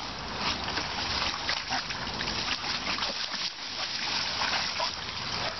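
Water splashing and sloshing in a plastic kiddie pool as a dog thrashes and paws in it: rapid, irregular, continuous splashing.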